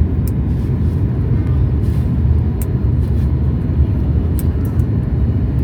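Boeing 737 MAX 8 in flight: a steady low rumble of engines and airflow, with a few faint high clicks.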